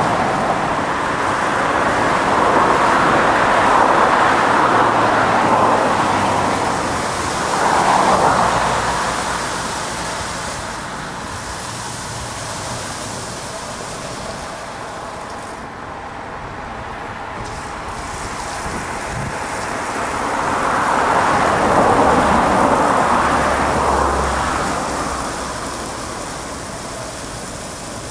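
Stargate S111 R rollover car wash gantry working over a car: a loud rushing that swells and fades several times as the gantry moves along the car, over a low motor hum.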